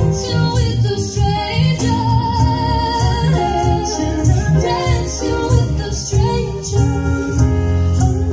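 Live pop duet: a woman and a man singing into microphones over a live band with bass and cymbals. About two seconds in, a held note wavers with vibrato.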